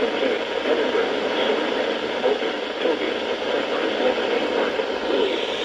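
Steady radio static hiss from a NOAA Weather Radio receiver.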